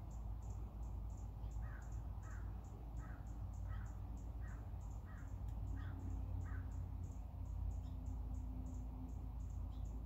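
American crow cawing, a run of about eight evenly spaced caws that stops a little past the middle. A rapid, high-pitched chirping repeats throughout over a steady low city rumble.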